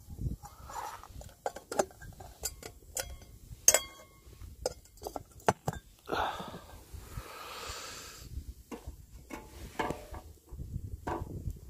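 Metal spoon clinking and scraping against a stainless steel billy can while stew is stirred, a series of sharp knocks, some ringing briefly. A long breathy sound comes about six seconds in.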